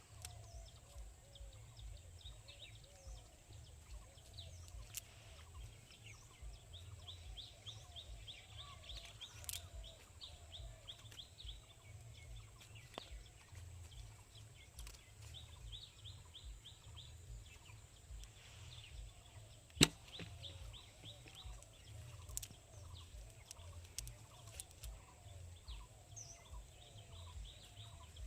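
Rural outdoor ambience: birds chirping and calling in rapid trills, over a low wind rumble on the microphone. One sharp click comes about twenty seconds in.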